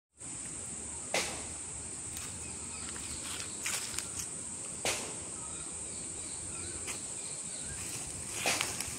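A steady, high-pitched insect drone, broken by a few sharp crunches of bare feet stepping on dry leaves.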